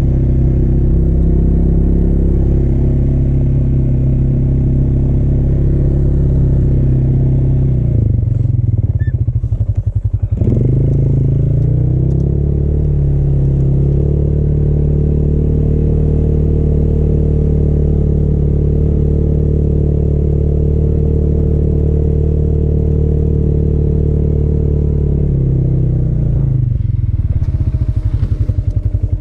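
A vehicle's engine running under load while driving through deep snow, holding steady revs. The revs drop and climb back up about a third of the way in, then drop again near the end.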